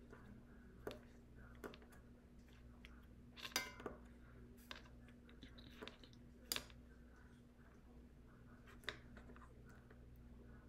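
Faint, scattered sharp clicks and light taps, with a short rattle about three and a half seconds in, from a rhinestone pick-up pen and loose crystal rhinestones on a plastic rhinestone template. A low steady hum runs underneath.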